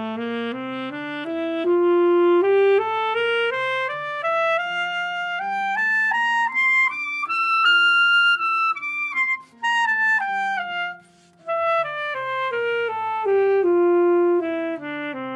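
Alto saxophone playing a three-octave D scale, stepping up note by note into the altissimo register to its top note about halfway through, then stepping back down. Two brief breaks in the sound come during the descent.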